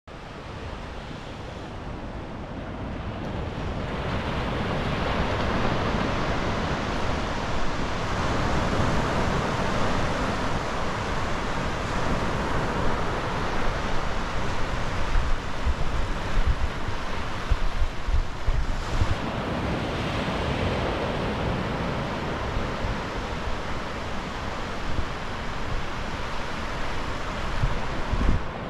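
Sea surf washing onto a beach, with wind buffeting the microphone; it fades in over the first few seconds, then runs steadily.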